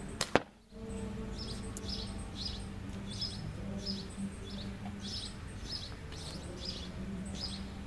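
A slingshot shot at card targets: two sharp cracks in quick succession just after the start, the loudest sound here. After that a bird chirps over and over, about two short chirps a second, above a low steady hum.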